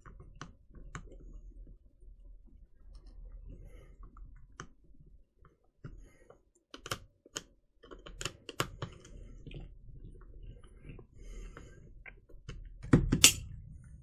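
A screwdriver turning out the screw of a plastic heavy-duty lamp cord switch, with small scattered clicks and scrapes. Two loud knocks about a second before the end.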